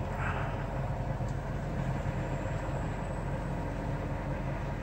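Kenworth semi-truck's diesel engine idling, a steady low rumble.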